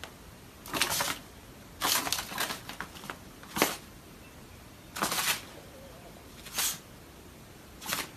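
Kitten hissing at a small dog in six short spitting bursts, roughly one every second and a half.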